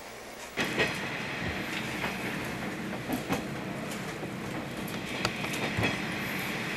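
KiHa 40 diesel railcar running on the Iiyama Line, heard from inside: a steady running rumble with irregular clicks of the wheels over rail joints. It comes in louder about half a second in.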